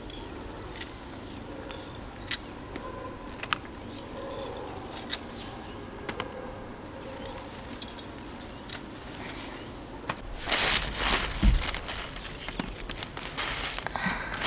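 Quiet outdoor ambience with scattered clicks and a bird giving a short falling call over and over, then loud crinkling and rustling for the last few seconds.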